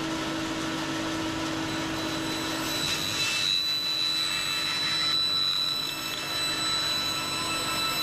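Band saw running and cutting through a running shoe's foam and rubber sole: a steady machine noise with a low hum, and a higher whine that comes in about three seconds in.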